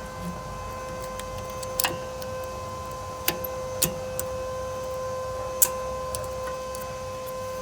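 A few sharp, separate metallic clicks and knocks from hand tools working on a car's rear brakes, spaced a second or more apart. A steady humming tone runs underneath.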